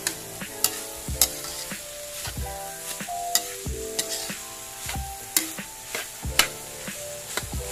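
Metal spatula scraping and knocking against a stainless steel wok in quick irregular strokes as diced pork is stir-fried, the meat sizzling in the pan. Background music plays underneath.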